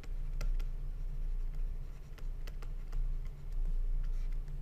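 Stylus writing on a tablet: a scatter of light ticks and taps as the pen nib meets the surface, over a steady low hum.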